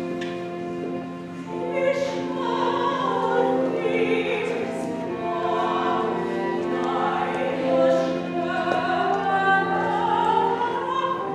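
Church music: sustained organ chords, with a voice singing in a classical style that comes in about a second and a half in.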